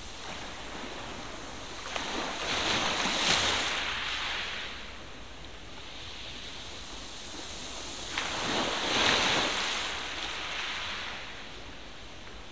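Pages of a paper magazine turned slowly by hand, twice: each turn a swell of paper rustling about three seconds long that opens with a short crackle, over a steady hiss.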